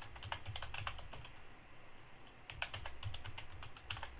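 Typing on a computer keyboard: a quick run of keystrokes, a pause, then a second run starting about two and a half seconds in.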